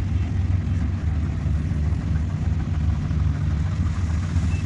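Rice combine harvester's engine running steadily under load as it cuts and threshes, a deep, even drone.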